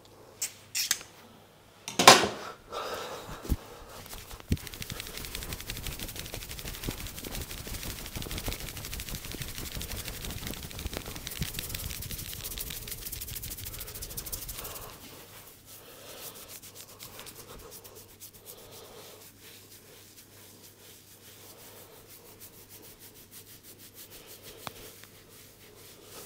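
Head massage by hand: a few light clicks, then one loud sharp snap about two seconds in. About ten seconds of very fast, dense rubbing and tapping on the head and hair follows, then softer, slower rubbing.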